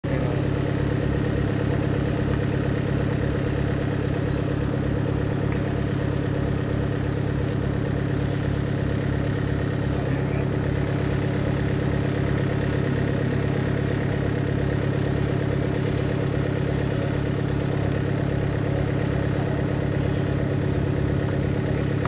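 PZL-110 Koliber 160A light aircraft's four-cylinder piston engine idling steadily on the ground, an even, unchanging engine beat.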